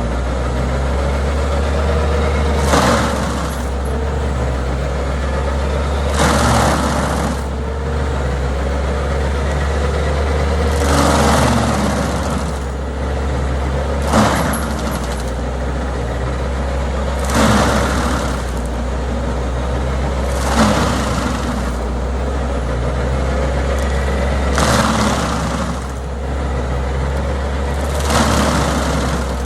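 Road traffic: vehicles passing one after another, each a swelling whoosh about every three to four seconds, over a steady low rumble.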